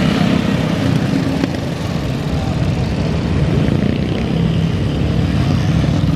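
Several small vintage motorcycles running at low speed, their engine notes overlapping into one steady drone.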